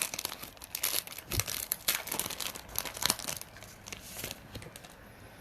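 Trading card pack wrapper being torn open and crinkled by hand, an irregular run of crackling rustles that dies away about four and a half seconds in.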